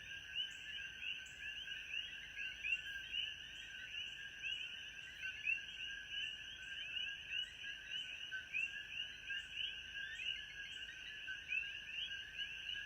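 A dense chorus of frogs, many short calls overlapping, over a steady high insect drone. A short high chirp repeats about twice a second and stops near the end.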